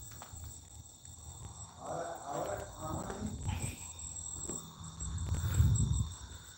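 Steady night chorus of crickets chirring, with a louder low rumble near the end.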